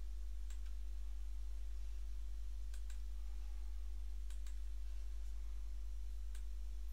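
A handful of faint computer mouse clicks, some in quick press-and-release pairs, over a steady low hum.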